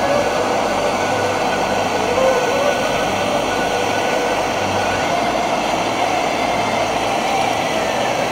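Handheld gas torch burning steadily with a loud, even rushing noise as its flame plays on a golf ball, with faint wavering whistle-like tones running through it.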